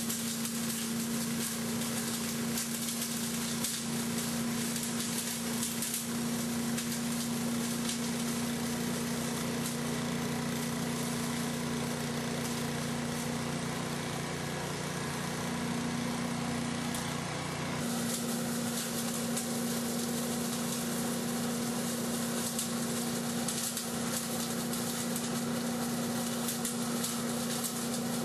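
Self-propelled leaf vacuum's small engine running steadily at full speed with its fan whirring, and a constant fine crackle of dry leaves being drawn through it. The steady tone shifts slightly about two-thirds of the way through.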